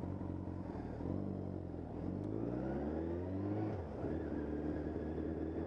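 Suzuki GSX750F inline-four engine running steadily, then climbing in pitch as the motorcycle pulls away, before the pitch drops suddenly about four seconds in.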